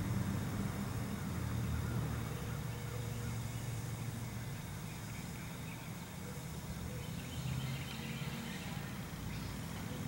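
Faint, distant outdoor warning siren, a thin tone that comes and goes, over a steady low rumble. Short high chirps near the end.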